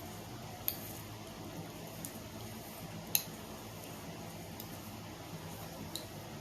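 Chewing gum being snapped in the mouth: five short, sharp snaps at uneven intervals, the loudest about three seconds in.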